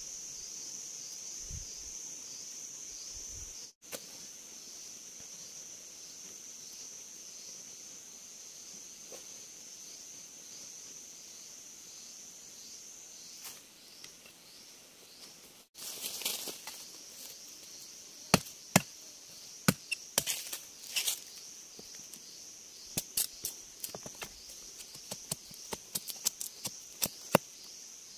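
Machete blade chopping a wooden stick to a point against a log: sharp strikes that begin about halfway through, some single and some in quick runs, coming thicker near the end. Under them runs a steady high drone of insects.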